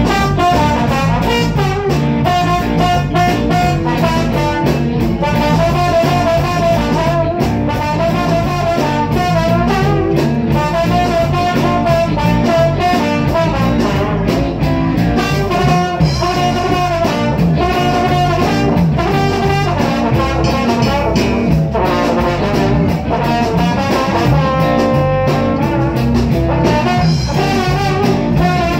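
Live band playing a jam, with a brass horn carrying the melody over the rest of the group.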